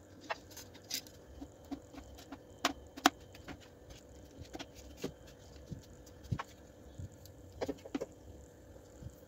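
Handling noise from fitting the plastic parts of a portable Bluetooth speaker back together: scattered clicks, taps and knocks of the housing, end cap and woofer driver, the loudest knock about three seconds in. A faint steady hum runs underneath.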